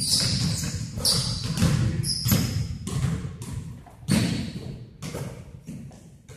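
Basketball bouncing on a gym floor, a run of echoing thuds, with short high sneaker squeaks in the first two seconds; the thuds grow fainter in the last couple of seconds.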